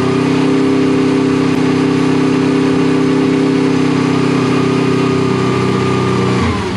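Honda VFR800 VTEC's V4 engine held at a steady raised speed of about 4,000 rpm while in gear, during the gear-learning step of programming a gear indicator. Near the end the throttle is released and the revs drop quickly.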